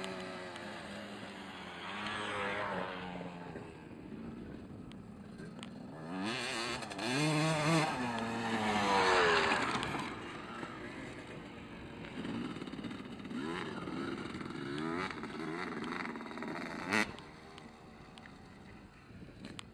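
Motocross dirt bike engine revving up and falling off again and again as it is ridden around the track, loudest as it passes close by a little before halfway, then fainter repeated revs as it rides away. A single sharp click near the end.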